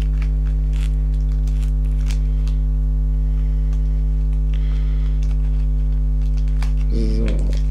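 Loud steady electrical mains hum, with scattered faint clicks and rustles of packaging being worked open by hand.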